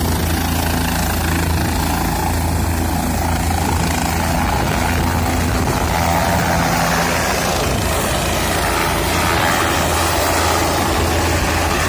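Helicopter lifting off and hovering low. Rotor and engine run loudly and steadily, with a low, regular beat of the blades.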